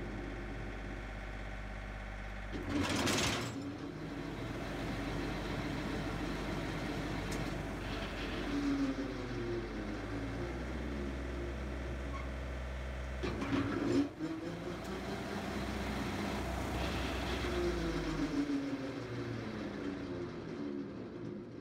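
Compact diesel tractor running while its PTO is switched on and off to spin a rotary cutter (bush hog), shocking the PTO slip clutch to break its friction plates free. A sudden clatter comes about 3 seconds in and again about 13 seconds in, and between them the engine and spinning cutter sweep up and down in pitch.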